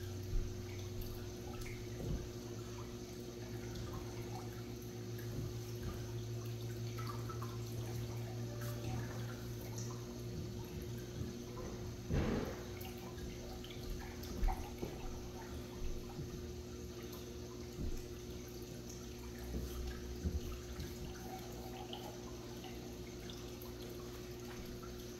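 Saltwater aquarium running: water trickling and air bubbles rising in the tank over a steady low pump hum, with scattered small drips and splashes. The loudest splash comes about twelve seconds in.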